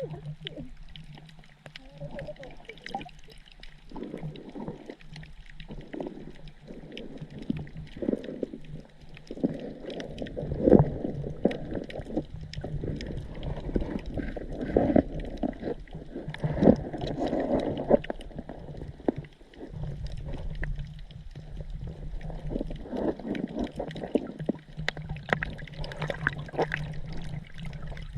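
Underwater recording of a sergeant major damselfish making short, low pops and pulses in irregular clusters, over a steady low hum and water noise.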